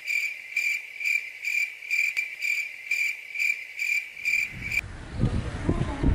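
Cricket chirping: a high, even chirp repeating about twice a second, which cuts off abruptly about five seconds in. A low, uneven rumble on the phone microphone follows.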